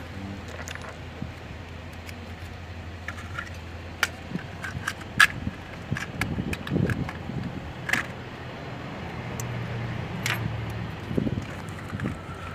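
Metal clicks and clinks of a spark plug socket and extension bar against the engine as spark plugs are threaded back into the cylinder head, a few sharp knocks spread through, over a low steady hum.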